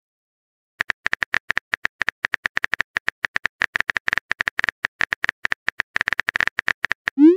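Rapid phone-keyboard typing clicks, a quick run of short taps. Near the end comes a short rising swoosh, the message-sent sound.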